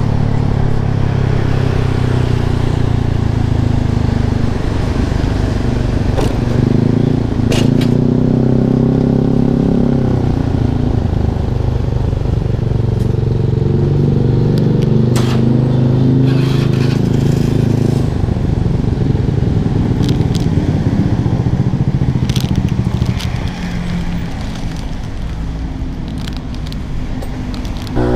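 Yamaha Lexi scooter engine running through an Arrow aftermarket exhaust, its note rising and falling, quieter for the last few seconds. A few sharp clicks sound over it.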